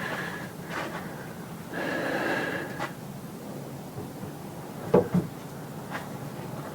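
A horse blowing hard out through its nostrils for about a second, starting about two seconds in. Two sharp knocks come about five seconds in.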